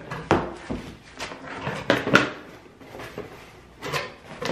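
A gift bag and cardboard box rustling and bumping as they are pulled over and handled, in a series of irregular scrapes and knocks.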